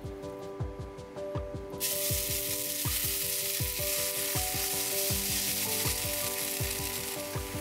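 Potato-and-onion pancake batter frying in hot oil in a nonstick skillet: a sizzle starts suddenly about two seconds in as the batter lands and keeps on while it is spread with a spoon, easing slightly near the end. Background music with a steady beat runs underneath.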